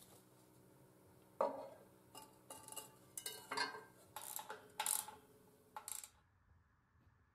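Guard cover being fitted over the wire brush wheel of a homemade pipe rust-removal machine: a run of about eight sharp clanks and knocks, irregularly spaced. The sound stops abruptly near the end.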